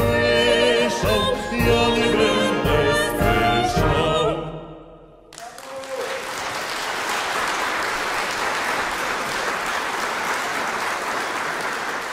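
A wind band of brass and woodwinds, with a man and a woman singing over it with vibrato, plays the last bars of a song, which ends about four and a half seconds in. About a second later the audience bursts into steady applause.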